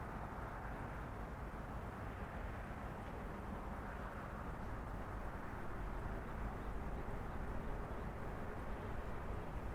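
Steady outdoor city ambience: an even, low rumble of distant traffic with no distinct events.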